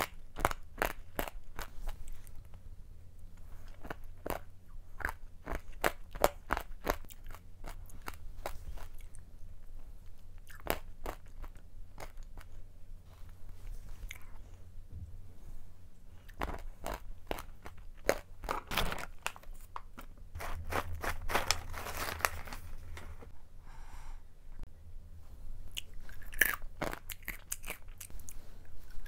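Close-up crunching and chewing of roasted almonds eaten with spoonfuls of ice cream: a run of many quick crisp cracks as the nuts are bitten, with a few louder bites near the end.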